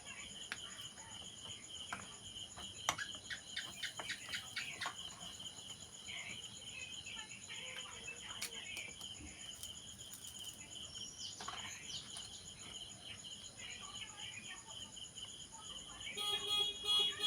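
Steady high-pitched pulsing trill of crickets, with scattered light clicks and taps from about two to five seconds in. Near the end a vehicle horn beeps in short repeated blasts.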